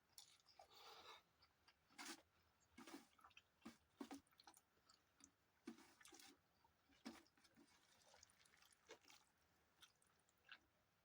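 Faint, close-up chewing of soft food: irregular wet mouth smacks and clicks as a person eats rice with dalma, busiest in the first seven seconds and sparser after.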